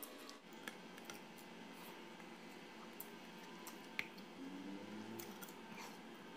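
Faint mukbang eating sounds: scattered sharp clicks and smacks of fingers picking through crab and mussels in a tray and chewing, the loudest click about four seconds in, with a short low hum a little later.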